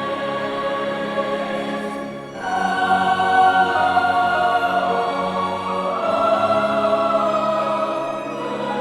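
Choir singing long held chords with instrumental accompaniment. About two seconds in the sound dips briefly, then a louder, higher chord comes in and is held.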